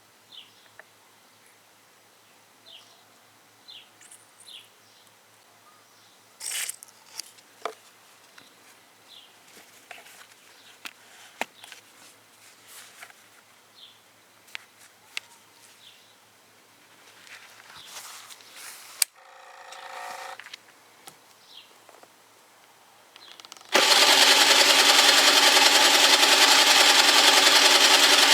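Faint bird chirps and scattered small clicks and taps over a quiet background. About 24 seconds in, the Gilera DNA 50 scooter's small two-stroke engine suddenly starts, a loud, steady, rattly buzz that holds to the end.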